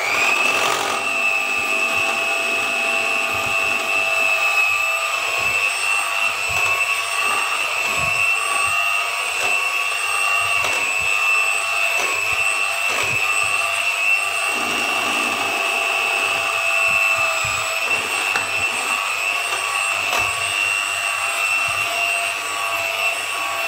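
Electric hand mixer running steadily with a high-pitched motor whine, its beaters working through creamed butter and sugar as eggs are beaten in for cake batter.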